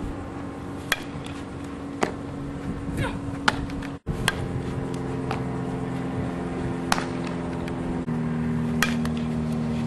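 A handful of sharp, separate knocks from a softball being hit and fielded in infield practice, over a steady low hum.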